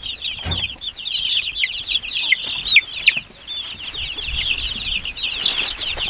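A brood of Cornish cross broiler chicks peeping constantly: many short, high, overlapping peeps, most sliding downward in pitch.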